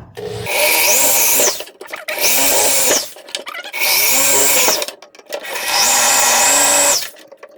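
Handheld electric drill drilling out a rivet in a box fan motor's bushing housing, run in four short bursts. Each burst has a whine that spins up, holds and winds down.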